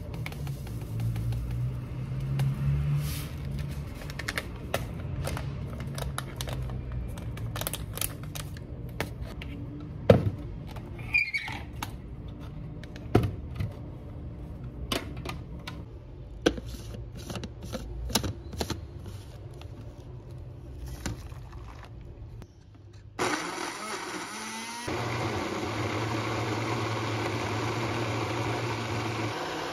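Scattered clicks and knocks as ingredients and a plastic blender cup are handled, then about 23 seconds in a personal blender's motor starts suddenly and runs steadily, blending kale and mixed fruit.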